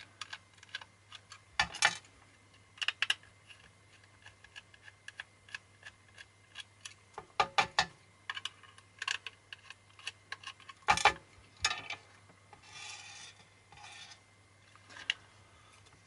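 Small screwdriver turning screws out of a hard ABS plastic case: a scatter of small clicks and scrapes, with a few louder clacks, and a rough scraping rub near the end as the plastic back cover is worked loose.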